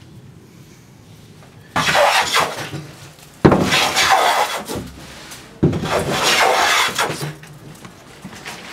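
Three long strokes of a hand plane shaving down a wooden bilge runner on a canoe hull, each starting sharply and lasting about a second and a half.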